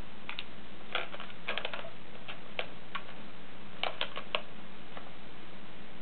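A cat pawing and clawing at a small lizard's cage: scattered light clicks and taps, bunched in quick clusters about a second and a half in and again around four seconds, over a steady hiss.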